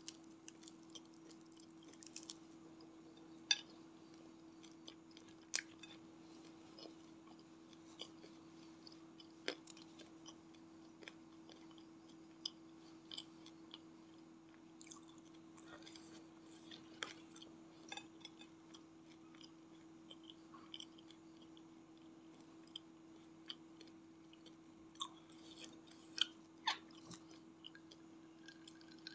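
Close-miked chewing of crispy battered fried snacks (gorengan), with scattered crisp crackles and mouth clicks. A steady low hum runs underneath.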